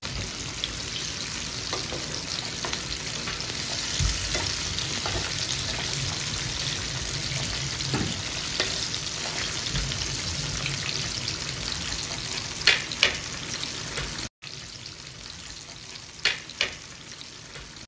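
Battered chicken strips deep-frying in hot oil in a frying pan: a steady crackling sizzle, which breaks off briefly about two-thirds of the way through and comes back quieter. Near the end, metal tongs give a few sharp clicks against the pan.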